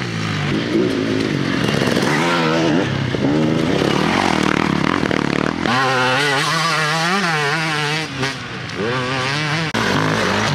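Dirt bike engines revving up and down as enduro riders accelerate along a rough dirt track, one bike after another. The engine note changes abruptly about six seconds in and again near the end as a new bike takes over.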